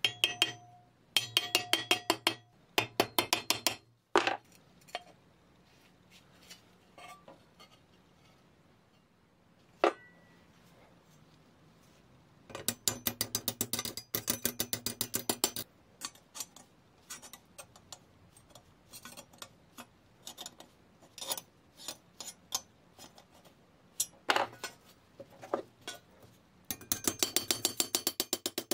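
Hand tools working metal parts. There are several runs of fast, even, ratchet-like clicking, the longest about three seconds, with single metallic clinks and taps between them.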